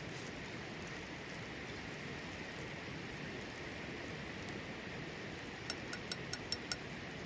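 Steady rain-like hiss, with a quick run of six light, ringing clinks about six seconds in.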